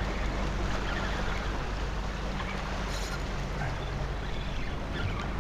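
Steady wind rumble on the microphone over small waves washing against the rocks of a jetty.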